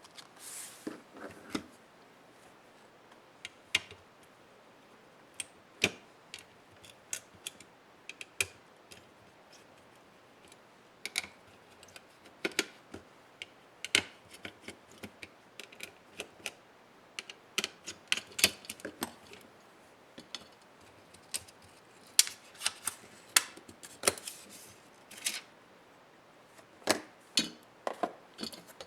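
Irregular sharp clicks and taps of small plastic and metal laptop parts and hand tools being handled during disassembly of a Dell Inspiron 11 3180. They are sparse at first and come thicker and quicker from about a third of the way in.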